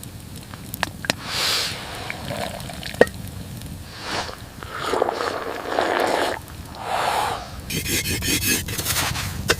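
Scraping and rustling noises in uneven swells, with a few sharp clicks, the loudest about three seconds in, and a quick rattling scrape near the end.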